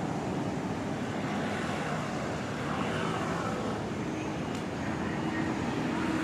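Steady city traffic noise, with a low engine hum that fades in and out.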